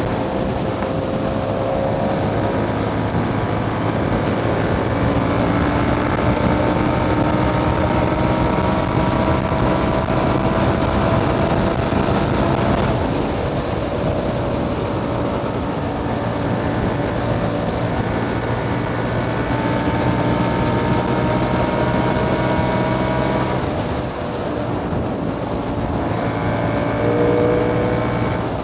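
KTM 890 Duke R's parallel-twin engine through a catless Austin Racing GP1R exhaust, pulling with its pitch rising slowly and steadily, then dropping abruptly about halfway through and again near the end before climbing again.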